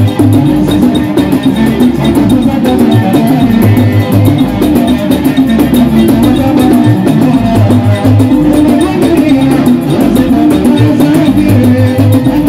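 A live band playing loud modern taarab dance music, with drums keeping a steady beat.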